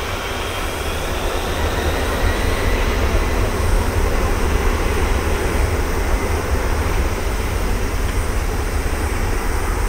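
Boeing 747-400F freighter's four jet engines at high thrust during the takeoff roll: a loud, deep, steady roar that swells a little about two seconds in.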